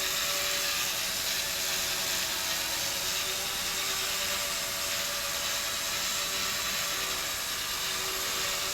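Dromida Vista quadcopter hovering: a steady high-pitched buzz of its small motors and propellers. The owner suspects a faulty rear-left motor behind the noise and the backward drift.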